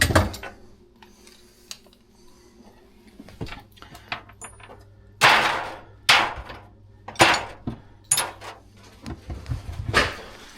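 Metal hand tools and fittings knocking and clinking during faucet repair work: a handful of sharp knocks spread out, with one longer scraping rattle about five seconds in, over a low steady hum.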